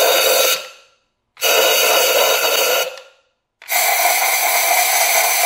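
Compressed-air blow gun hissing in three blasts of about a second and a half to two seconds each, with short gaps between, blowing dust and dirt out of the spark plug wells before the plugs are removed.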